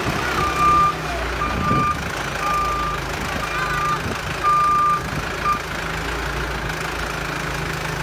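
Bull backhoe loader's reversing alarm beeping about once a second over its running diesel engine. The beeps stop about five and a half seconds in, and the engine runs on steadily.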